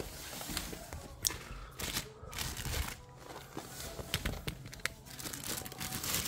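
Plastic wrap crinkling and tearing in irregular crackles and snaps as hands pull it off an adjustable dumbbell.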